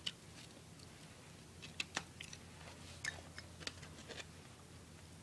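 Pocket knife blade working into the seam of a ThinkPad laptop's plastic cover, giving faint scattered clicks and light scrapes, the sharpest about two seconds in.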